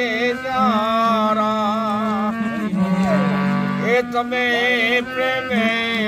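An elderly man singing a devotional song with a wavering voice, accompanying himself on a hand-pumped harmonium that holds steady reed notes beneath him and changes note a few times.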